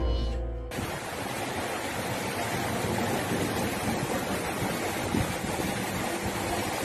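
Strong storm wind rushing steadily across the microphone, a dense even roar. Under a second in, a music sting cuts off abruptly just as the roar begins.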